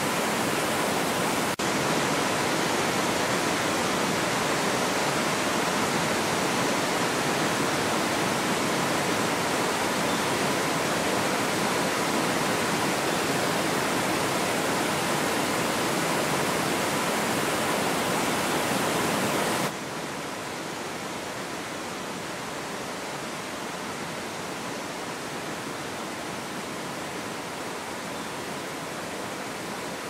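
Waterfall pouring into a pool: a steady, even rush of falling water that drops to a noticeably lower level about two-thirds of the way through.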